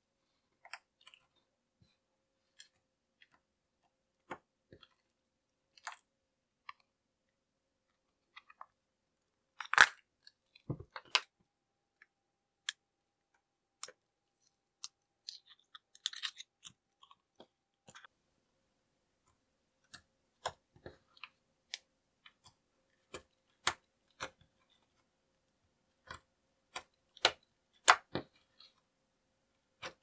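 Homemade slime being squeezed and poked by hand, giving scattered wet, sticky clicks and pops with gaps of silence between them, a louder cluster about a third of the way in and again near the end.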